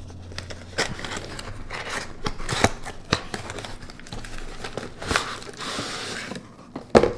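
Cardboard mailing box being opened by hand: the flap and packing tape scraping and crackling in short bursts, then a paper mailer sliding out of the box with a longer rustle, and a sharp thump near the end.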